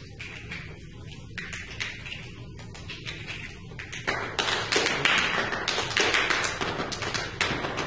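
Student percussion ensemble playing: light, sparse taps, then denser and louder striking from about four seconds in.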